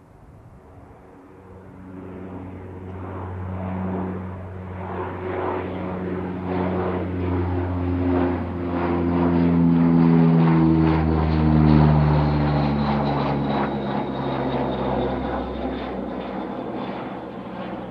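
Two Allison T56 turboprops of a US Navy C-2 Greyhound in a low flyby: the propeller drone grows louder, peaks about ten to twelve seconds in, then falls in pitch and fades as the aircraft passes and goes away, with a faint high turbine whine sliding down alongside.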